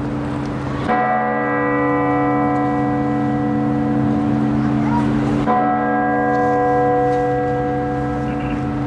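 A large bell tolling slowly: two strokes about four and a half seconds apart, each ringing on long after it is struck.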